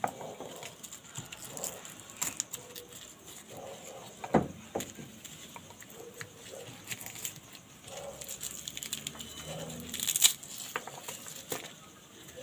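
Garlic cloves being peeled by hand on a wooden cutting board: the dry papery skins crackle and rustle in scattered small clicks, with a duller knock about four seconds in and a sharper clatter of clicks near the end.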